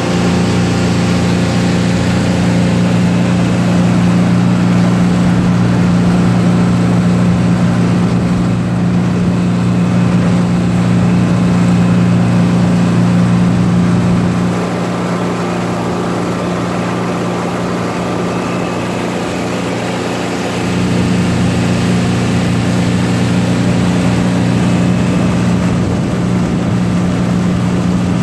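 Boat engine running under way with a steady low hum, over the rush of water from the wake. It eases off about halfway through and picks up again several seconds later.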